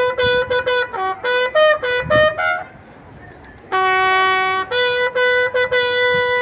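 Ceremonial bugle call on a brass bugle: quick repeated notes on a few fixed pitches, a short lull about two and a half seconds in, a held lower note, then more quick notes ending on a long held note.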